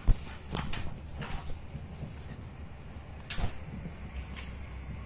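Hands handling a smartphone's cardboard box and paper packaging: scattered rustles and light knocks, the loudest about three seconds in.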